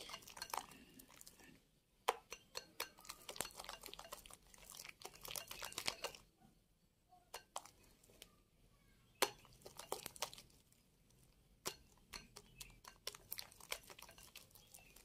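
Wire whisk beating egg-yolk batter in a glass bowl: faint, quick irregular clicks and taps of the wires against the glass, with a soft wet stirring underneath. The whisking pauses briefly about two seconds in and again around six to seven seconds in.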